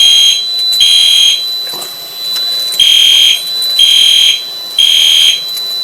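Fire alarm horn sounding the temporal-three evacuation signal: three half-second blasts about a second apart, a pause of about a second and a half, then the next three. A thin steady high tone runs underneath.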